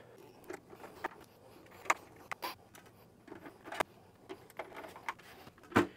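A few scattered light clicks and taps as small screws and a screwdriver are handled against the network video recorder's case while its cover screws are put back in; the loudest click comes near the end.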